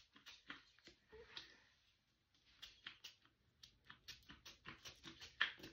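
A hair-oil spray bottle spritzed over and over, making short faint hisses. After a pause about two seconds in, the hisses come quicker, about four a second.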